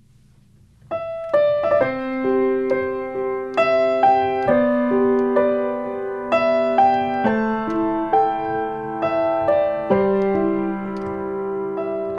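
Piano playing a slow, gentle prelude of held chords and single melody notes, starting about a second in.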